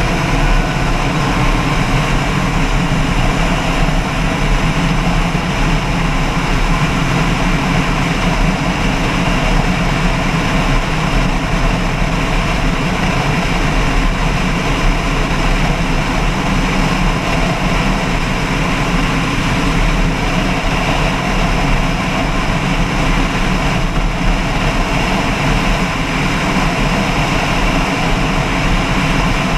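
An engine running steadily and without a break, its pitch rising slightly in the first second.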